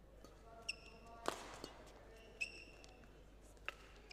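Badminton rally: sharp racket strikes on the shuttlecock, the loudest about a second in, with short high squeaks of court shoes on the floor between shots.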